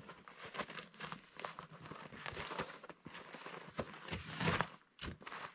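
Footsteps on packed snow and ice-fishing gear being handled at a loaded sled: faint, irregular crunches and knocks, with one louder clunk about four and a half seconds in.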